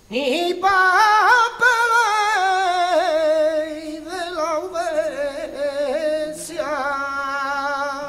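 Male flamenco singer singing a toná unaccompanied: one long, ornamented phrase with a wide vibrato. It enters with an upward slide and ends on a long wavering held note.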